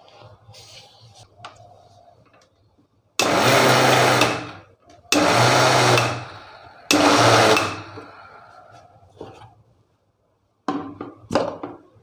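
Electric mixer grinder with a steel jar grinding cashews into powder in three short pulses of about a second each, the motor starting and stopping each time. The cashews are run in short bursts rather than all at once. A few knocks and clicks of the jar and lid are heard near the end.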